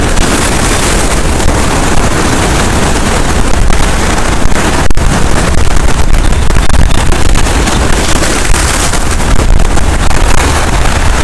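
Strong wind buffeting the microphone over waves breaking and washing on shoreline rocks, a constant loud rushing noise with heavy low rumble.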